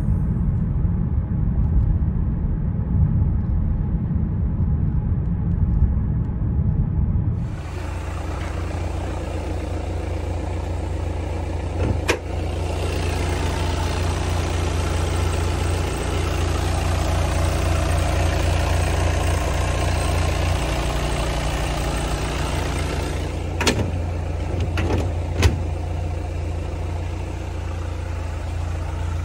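Low rumble of a car being driven, heard from inside the cabin. After about seven seconds it gives way to a Volkswagen T-Roc's 2.0 TDI four-cylinder turbodiesel idling steadily with the bonnet open, with a few short clicks.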